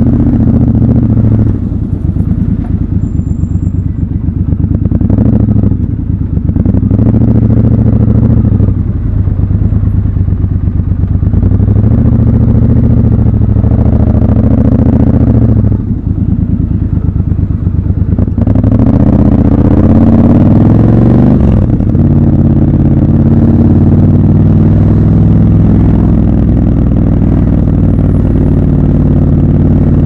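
Triumph Scrambler 1200 XC's 1200 cc parallel-twin engine, ridden at low speed in stop-and-go traffic. It is given several short pulls of throttle that raise and drop its pitch, then one longer rise that cuts off sharply about twenty seconds in. After that it runs at a steady pitch to the end.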